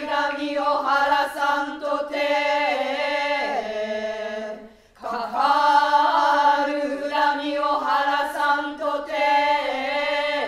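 Noh-style chanting: a voice holds long sustained notes, stepping down in pitch at the end of a phrase. It breaks off briefly about halfway through, then starts a second phrase that falls again near the end.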